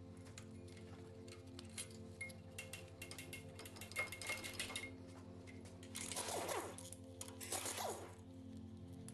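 Background music over scattered metallic clinks and clicks of tools and engine parts being handled, with two short rasping bursts in the second half.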